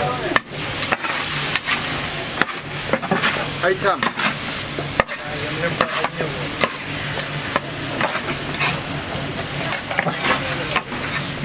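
Food sizzling on a hot cooking surface as it is stirred and scraped, with frequent sharp, irregular clacks of a utensil against the metal. A steady low hum runs underneath.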